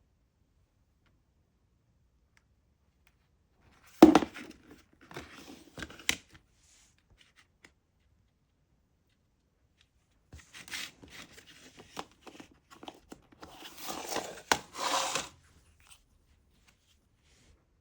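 Plastic shrink-wrap being torn and crinkled off a new CD case, in two spells: a sharp start about four seconds in with a couple of seconds of tearing, then a longer stretch of tearing and crackling from about ten seconds in, loudest near its end.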